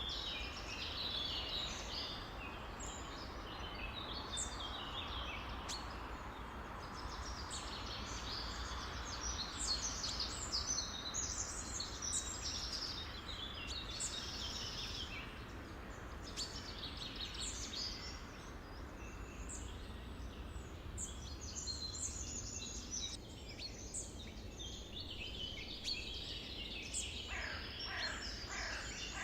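A chorus of many songbirds chirping and trilling at once, overlapping without pause, over a steady low background noise. Near the end a lower call sweeps downward.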